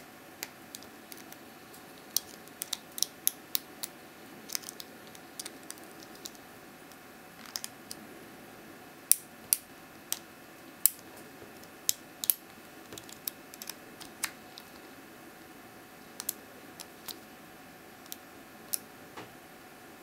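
Irregular sharp metallic clicks, bunched and loudest about halfway through, as a pick works the pins inside the keyway of a Vachette Achille 50 mm brass padlock fitted with five anti-pick security pins, held under a tension wrench.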